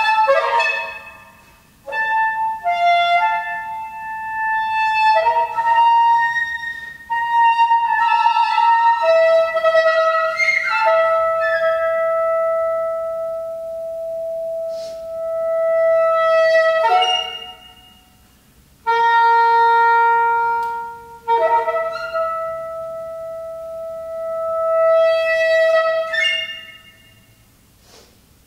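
Piccolo and soprano saxophone playing a contemporary classical duet of long held notes, with short breaks between phrases. The playing stops near the end.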